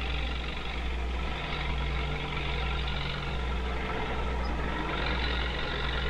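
Farm tractor pulling a corn chopper, both running steadily as it harvests field corn: an even, unbroken engine and machine drone.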